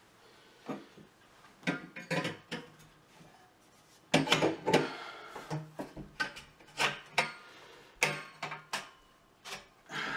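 Copper pipe and fittings knocking and clinking against each other and a wooden tabletop as the pipe assembly is handled, with a string of irregular sharp clunks and a little scraping.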